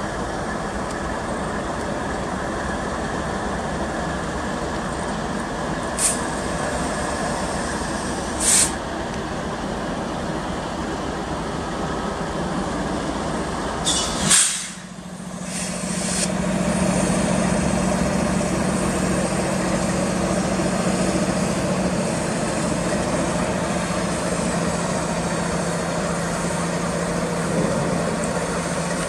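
Two diesel-electric freight locomotives, an EMD SD70ACe-T4 and a GE AC44CW, passing at the head of a train: a steady diesel engine and rail rumble. A few short, sharp high-pitched sounds come in the first half, and after a brief dip about halfway a steady low engine drone sets in.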